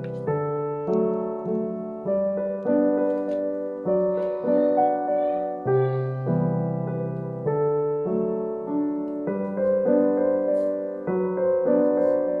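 Background music: a gentle piano tune with a steady, even pulse of notes.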